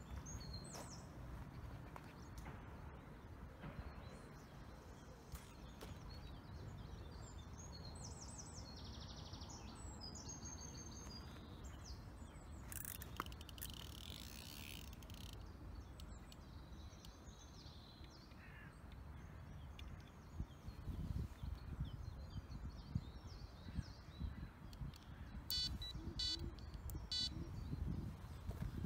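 Faint birds chirping and singing over a steady low rumble of wind on the microphone, with footsteps on gravel in the last several seconds.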